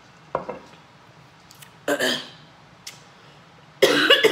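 A woman coughing after eating very spicy instant noodles: one short cough about two seconds in, then a louder, longer cough with her voice in it near the end. A short knock about a third of a second in, as a glass pitcher is set down on the table.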